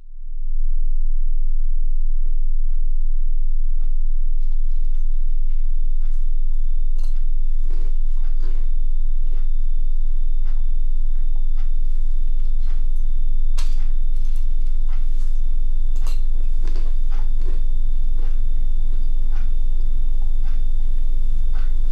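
A steady, loud, low droning carrier wave that fades in over the first half-second, with a thin high tone held above it and scattered crackles and clicks throughout: a 'DMT trip' carrier-wave drone used as eerie sound design.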